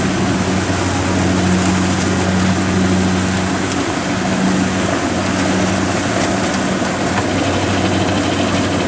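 Steady low drone of farm diesel engines running: a Kubota DC70 rice combine harvester parked beside a tracked rice cart.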